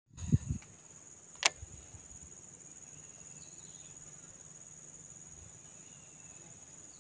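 Steady, high-pitched chirring of insects. At the very start come two muffled knocks of the phone being handled against the microphone, and a sharp click follows about a second and a half in.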